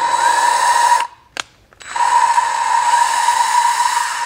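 Cordless drill spinning an engine valve against its seat in grinding compound, lapping the valve. The drill runs in two bursts with a steady whine, stopping about a second in with a short click, then starting again about two seconds in.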